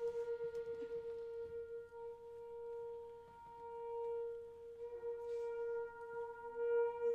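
A high-school wind ensemble playing quiet, slow contemporary music: one note held steadily, pulsing slightly at first. Soft lower brass notes come in near the end.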